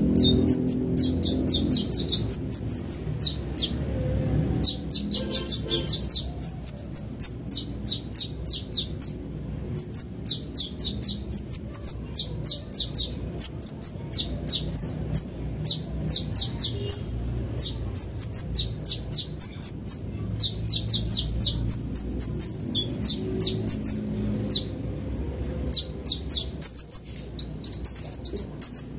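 Male 'kolibri ninja' sunbird singing a fast, unbroken string of short, high, sharp chirps and quick note runs, several notes a second, with barely a pause.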